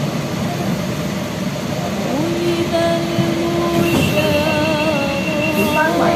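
Hong Kong Light Rail car running on the track with a steady rumble; about two seconds in its wheels begin to squeal, a steady pitched tone that gives way to several wavering tones near the end.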